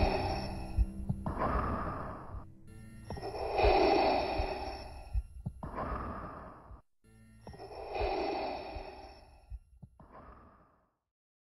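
Darth Vader's mechanical respirator breathing: three slow cycles of a long hissing breath followed by a shorter one, each cycle quieter than the last, fading out near the end.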